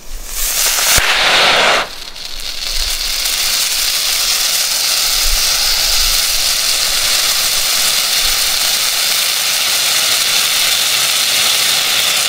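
Pyrotechnic red distress hand flare, two years past its expiry date, igniting from its pull string: a loud fizzing burst for about two seconds with a sharp crack about a second in, then a steady hiss as it burns.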